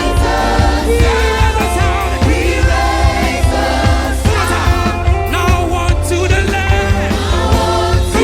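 Gospel choir singing praise and worship with a live band: sung voices over bass and drums with a steady beat.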